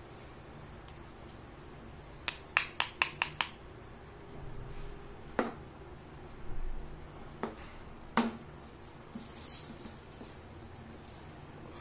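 Sharp clicks and taps of hard plastic toy doctor-set pieces being handled and set down on a tabletop: a quick run of about six clicks a couple of seconds in, then a few single taps and soft handling rustles.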